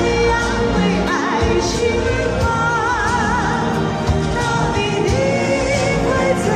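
A woman singing a Chinese pop song into a microphone over a recorded backing track, played through a portable amplifier; about three seconds in she holds a long note with wide vibrato.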